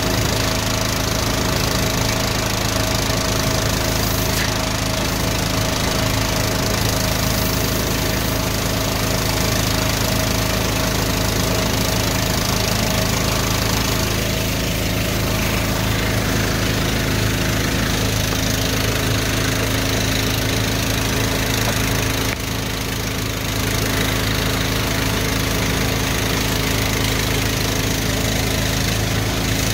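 Drain jetter's small engine running steadily at a constant speed while the high-pressure hose is worked in the drain; the level dips slightly for about a second around two-thirds of the way through.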